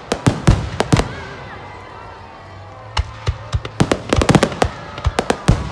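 Fireworks display: a rapid string of sharp bangs and crackles from bursting aerial shells. The bangs are thick for the first second, thin out, then come thick again from about three seconds in.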